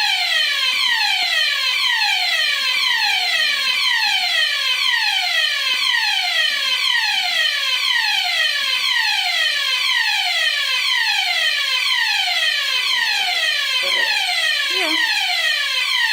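Olympia fire alarm sounder going off: one electronic tone that falls in pitch again and again, a little more than once a second, at a steady loud level.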